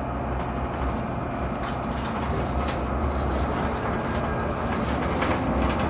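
Tram running, heard from inside the passenger cabin: a steady low rumble of the wheels on the rails and the running gear, with a few faint clicks.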